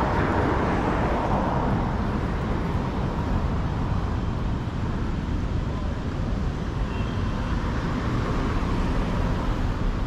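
City street traffic: a steady rush of car engines and tyres on the avenue, swelling in the first couple of seconds as a vehicle passes close by.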